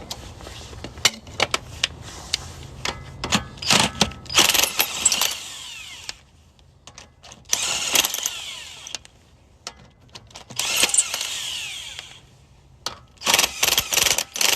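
Power tool on a car's wheel lug nuts, most likely an impact wrench, running in about four short bursts with clicks and metallic rattles between them.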